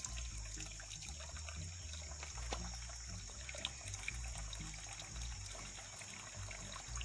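Faint creek water trickling, with uneven low rumbling underneath.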